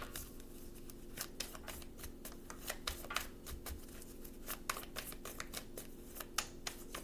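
Tarot deck being shuffled by hand: irregular soft card flicks and taps, over a faint steady hum.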